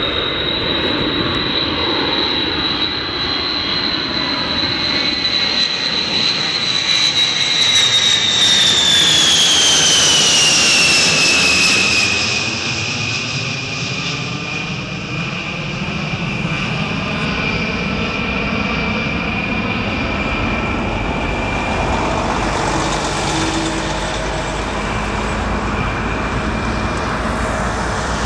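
Boeing B-52 Stratofortress's eight turbofan jet engines passing overhead in a fly-past: a steady high whine over a broad rush. The whine is loudest about eight to twelve seconds in as the bomber goes over, then drops in pitch and the sound eases as it flies away.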